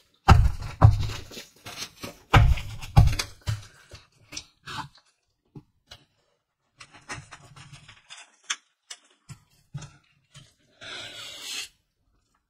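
A stack of lined paper sheets rustling and bumping as gloved hands work a small plastic clamp onto its edge, followed by scattered light clicks and taps and a short rustle of paper near the end.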